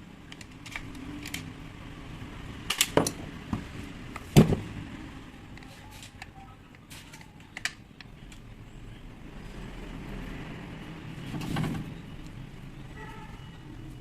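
Scattered clicks and knocks of tools and parts being handled while a rotary hammer is taken apart. The two loudest knocks come about three and four and a half seconds in, and a brief scraping sound follows near eleven and a half seconds.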